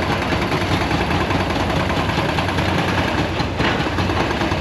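Heavy machinery engines running steadily with a constant low hum.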